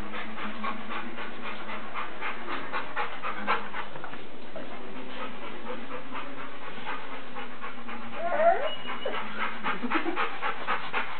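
Dogs panting quickly and rhythmically, several breaths a second. About eight seconds in, a brief gliding whine-like sound rises over the panting.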